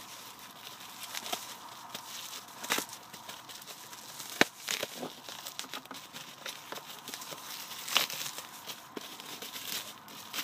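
Packaging being handled during an unboxing: crinkling and rustling with scattered sharp clicks and taps, the loudest click about four and a half seconds in and another near eight seconds.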